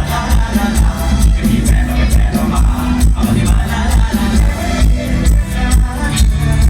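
Loud Thai Isan-style dance music with a heavy, steady bass beat and regular drum hits.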